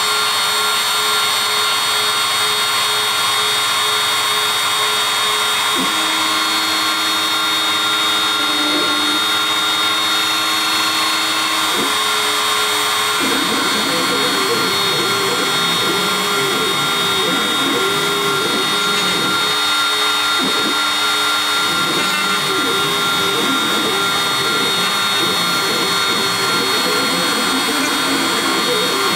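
Shapeoko CNC router milling wood: the spindle runs with a steady high whine while the stepper motors give lower tones beneath. In the first half these tones hold and step in pitch; from about halfway they rise and fall rapidly as the bit follows the curved wave contours of the carving.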